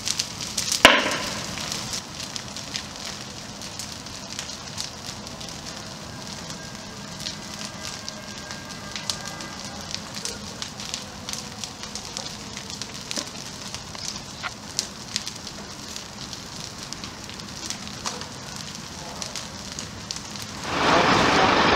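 A burning ATV crackling, with many sharp pops and snaps over a steady rushing of flame, and one louder bang about a second in. About a second before the end a louder steady noise suddenly cuts in.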